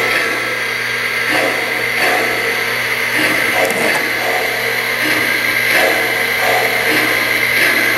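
O-gauge model trains, among them a K-Line Allegheny 2-6-6-6 steam locomotive, running on the layout's track: a steady mechanical running noise with a constant whine and a loose repeating pulse.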